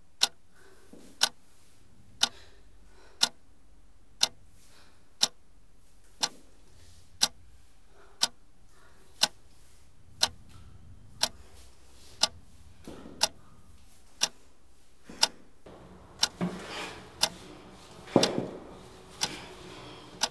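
A clock ticking, one sharp, even tick a second. In the last few seconds rustling and a couple of heavier thuds join in.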